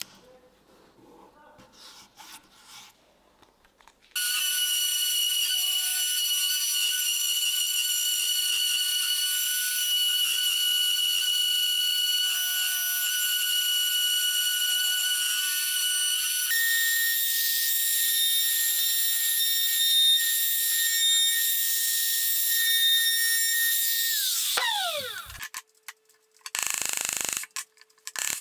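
Faint rustle of painter's tape being peeled off a wooden block, then a compact plunge router running with a high, steady whine as it cuts a bow-tie recess, its pitch shifting partway through. It winds down with a falling whine, and near the end a few sharp knocks come as a chisel pares the recess.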